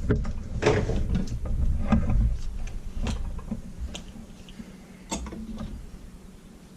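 Heavy-duty leather sewing machine stitching slowly through thick belt leather, a sharp knock at each stitch, about one or two a second, over a low hum, the stitching slowing and fading toward the end.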